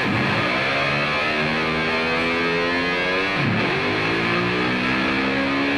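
Music: a distorted, effects-processed tone gliding steadily upward in pitch. The rising sweep starts over about three and a half seconds in.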